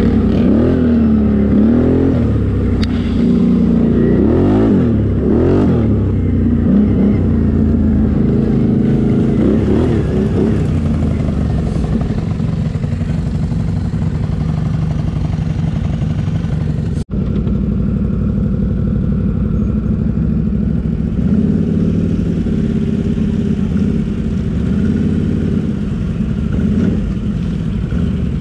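Can-Am Renegade 800 ATV's V-twin engine revving up and down for the first ten seconds or so, then running more steadily, with the sound cutting out for an instant about seventeen seconds in.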